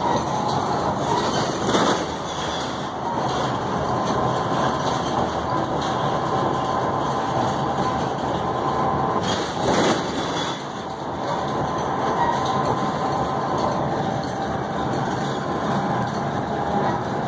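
Steady road noise heard from inside a moving vehicle, with a faint steady whine over it and two short louder thumps, about two seconds in and about ten seconds in.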